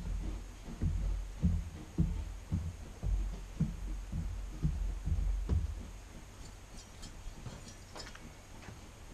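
A passing train moving away, heard as a regular series of low thumps about two a second that fade out after about five or six seconds.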